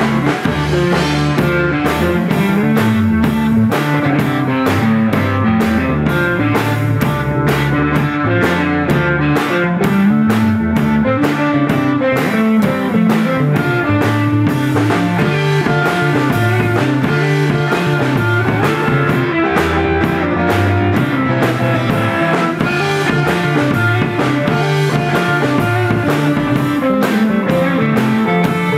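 Instrumental break of a psychedelic rock song: electric guitar over bass and drums, with no singing.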